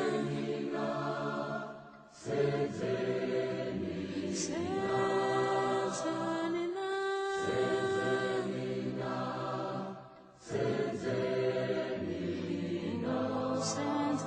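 Choir singing slow, held notes in harmony, with short pauses between phrases about two seconds in and again about ten seconds in.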